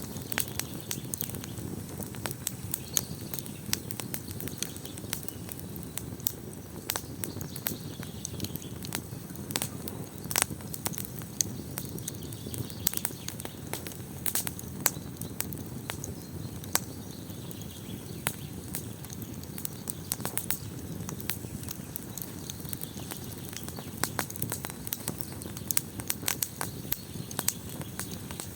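Wood fire burning: a steady low rumble of flames with constant irregular crackling and sharp pops of burning wood.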